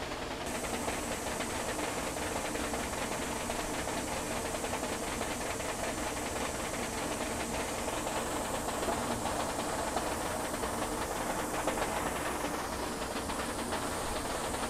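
A DTF-24H2 two-head direct-to-film printer running a print job: a steady hissing whir from the printer and its powder shaker and dryer unit, with a fast, fine clatter from the moving print-head carriage.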